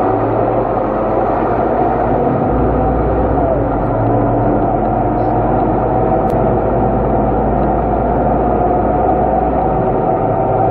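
Scania K230UB Euro 4 city bus under way, its engine and ZF automatic drivetrain giving a steady drone heard from inside the passenger cabin.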